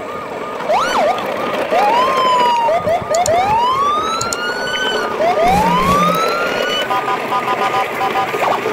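Electronic toy siren sounds: a fast warbling tone with several overlapping swooping tones that rise and fall.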